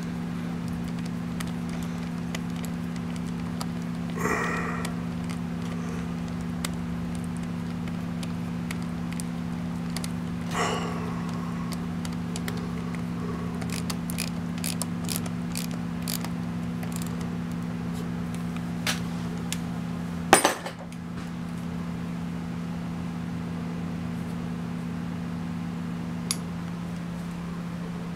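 Small metal engine parts handled during a Harley-Davidson Sportster lifter installation: scattered light clicks and clinks, with a sharper knock about two-thirds of the way through, over a steady low hum.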